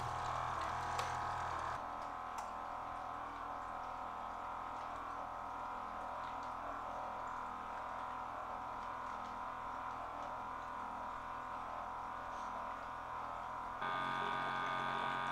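Sparkel beverage carbonator running its carbonation cycle: the agitator motor hums steadily as it keeps the water moving in the mixing bucket so the carbon dioxide reaction keeps going. Near the end the hum steps up louder for about a second and a half, then cuts off.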